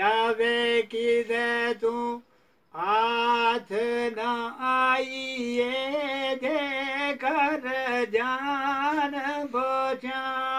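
An elderly man singing alone, unaccompanied, with his hands cupped over his ears. He draws out long held notes that waver and bend, and breaks off briefly about two seconds in before going on.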